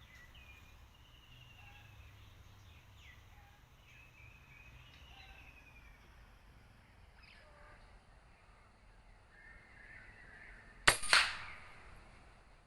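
Small birds chirping faintly, then a single sharp air-rifle shot about eleven seconds in, followed a fraction of a second later by a second, longer crack.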